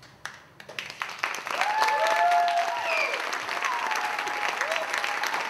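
Theatre audience applauding: a few scattered claps at first, then full, dense applause from about a second and a half in, with a few whoops and cheers over it.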